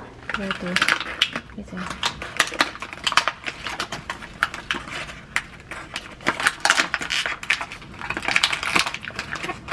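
Crinkly paper wrapper around a potted plant being gripped and peeled off, crackling and rustling in many quick irregular bursts.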